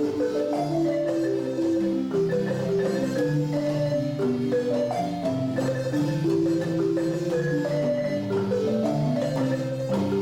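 Marimba music: a quick melody of struck notes over a lower accompaniment.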